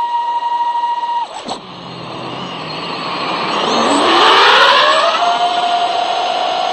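FPV quadcopter's electric motors and propellers heard from on board: a steady whine that drops out abruptly about a second in as the throttle is cut. Over the next few seconds the whine climbs back up in pitch as throttle returns, with a rush of air loudest about four seconds in, then settles into a steady, lower whine.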